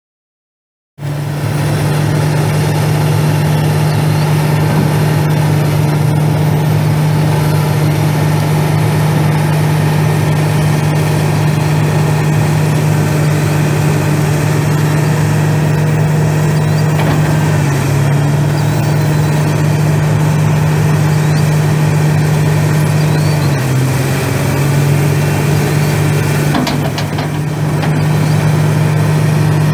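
Komatsu PC300LC-7L excavator's SAA6D114E 8.3-litre six-cylinder turbo diesel running at a steady speed. The sound begins abruptly about a second in. The engine's pitch sags briefly around 18 seconds, and again more deeply around 24 seconds, before recovering.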